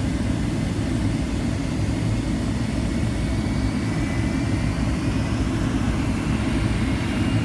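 Jet airliner cabin noise: a steady low rumble of engines and airflow, with a faint high whine, heard inside the cabin as the plane descends.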